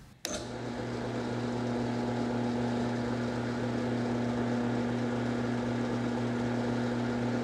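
Drill press running with a steady motor hum while a small twist bit bores a scroll-saw starting hole into a pine block. The hum starts abruptly just after the beginning.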